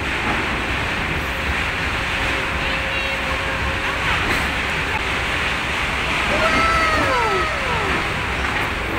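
Several birds' whistled calls, each gliding downward in pitch, overlapping about six and a half seconds in, over a steady rushing background noise.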